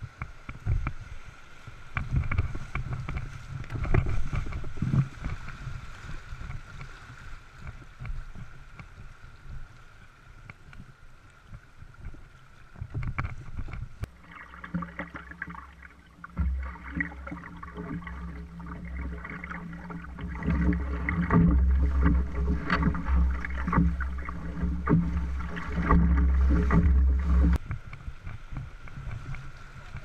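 Whitewater rapids rushing around an open canoe, with paddle splashes and water slapping the hull, and wind on the microphone. From about halfway through until near the end the rumble turns deeper and louder.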